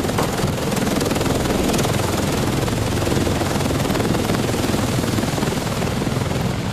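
V-22 Osprey tiltrotor aircraft taking off from a ship's flight deck, its rotors and engines giving a steady, loud helicopter-like rotor noise.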